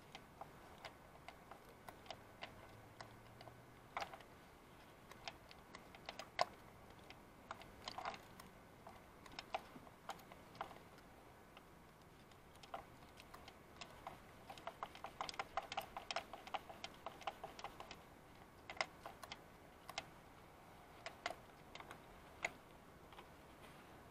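Faint, scattered light clicks and scrapes of metal tools probing down a spark plug well to free a stuck ignition coil rubber boot, with a quicker run of clicks around the middle.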